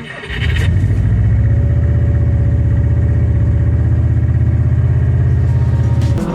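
An engine idling steadily with a fast, even low pulse. It comes in about half a second in and cuts off abruptly near the end.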